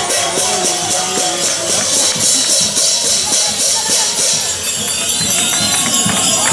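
Festive music with a tambourine-like jingle shaken in a steady beat, about four strokes a second, over voices. The jingling stops about four and a half seconds in.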